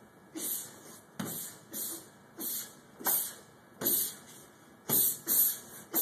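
Martial artist performing a bo staff form: a run of about eight short, sharp hissing swishes, roughly one every three-quarters of a second, louder toward the end.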